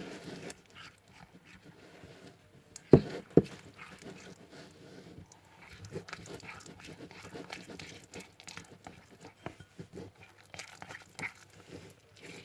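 Glue-and-detergent slime being stirred, with many small sticky clicks and crackles throughout. Two sharp knocks come close together about three seconds in.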